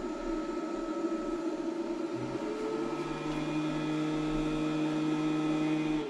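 The SUN GTIL2 2000 W solar inverter's internal cooling fan runs at speed with a steady whir, its pitch rising a little about two and a half seconds in. The fan switches on only once the inverter's heatsink passes about 50 °C under load.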